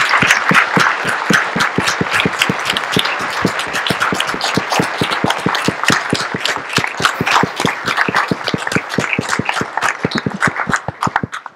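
Audience applauding, a dense patter of many hands clapping that slowly thins out and stops abruptly at the end.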